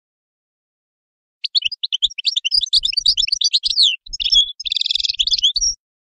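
European goldfinch singing: a fast, tinkling run of twittering notes that starts about a second and a half in and lasts about four seconds, with a short nasal buzzy phrase near the end.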